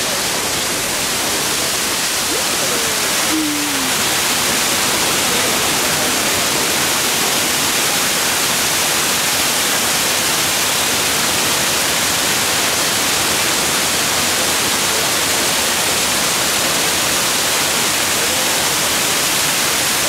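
Waterfall cascading over rock ledges close by: a steady, loud rush of falling water.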